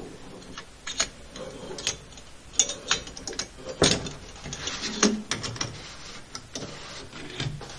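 Tub spout being screwed by hand onto its slip-on adapter on the copper stub-out: irregular clicks, knocks and scraping as it turns on the threads, with a short stretch of rubbing about five seconds in.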